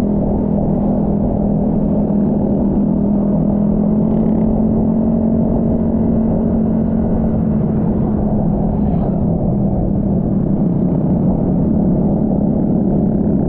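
Honda Vario 160 scooter's single-cylinder engine running at a steady cruising speed, a muffled, steady drone over a low rumble of wind and road.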